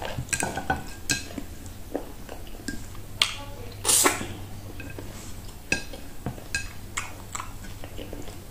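Close-up mouth sounds of someone eating meat and okro soup with her fingers: wet smacking and chewing clicks, with one loud slurp about four seconds in as she sucks on a piece held to her mouth.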